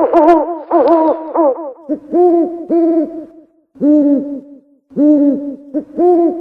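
Owl hooting: a quick run of overlapping hoots in the first two seconds, then short hoots in pairs, each pair followed by a brief gap.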